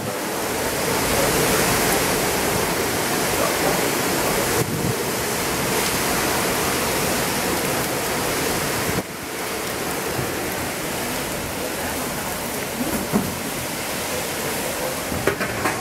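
Typhoon wind and heavy rain, a loud, steady rush that drops a little quieter about nine seconds in. A couple of brief knocks come near the end.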